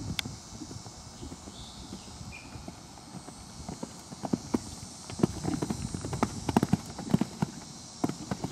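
Hoofbeats of a horse cantering on arena sand, falling in rhythmic groups of thuds that grow louder and clearer about four seconds in, as the horse comes up to and over a jump near the end.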